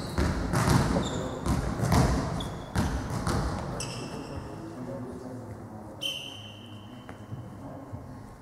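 Indoor volleyball sounds between rallies: a few sharp thumps of the ball bouncing on the hall floor in the first few seconds, then short high sneaker squeaks on the court floor.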